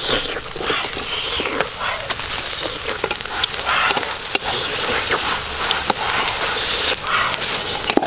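Grasshoppers stirred and tossed with a spatula in a metal cooking pot over a wood fire: a dry rustling and crackling with many small irregular clicks and scrapes against the pot.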